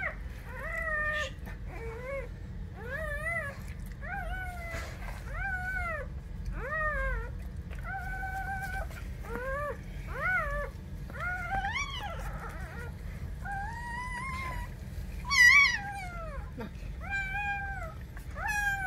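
Newborn Weimaraner puppy crying: a steady string of short, high, squeaky cries, each rising then falling in pitch, about one or two a second, with one louder cry about three-quarters of the way through.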